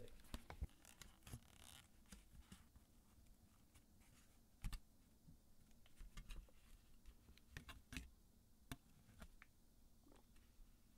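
Aluminium foil being handled, crinkling and rustling in faint scattered crackles and sharp ticks, with a louder tick a little under halfway through.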